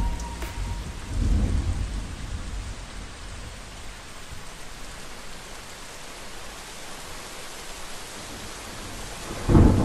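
Steady rain hissing, with a thunder rumble about a second in and a louder roll of thunder near the end.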